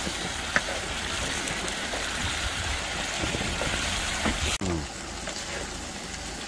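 Spicy octopus stir-fry with onion and vegetables sizzling on a griddle pan over a portable gas stove as it is stirred, a steady hiss that eases a little after about four and a half seconds. A short click about half a second in.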